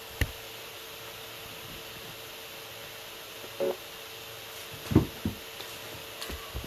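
Steady hiss with a faint steady hum. It is broken by a sharp click near the start, a short pitched blip about three and a half seconds in, a low thump about five seconds in, and a few faint clicks near the end.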